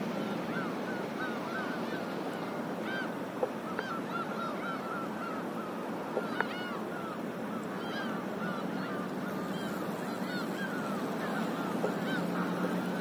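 A flock of birds calling: many short, repeated honking calls overlapping throughout, over a faint low steady hum and a few small knocks.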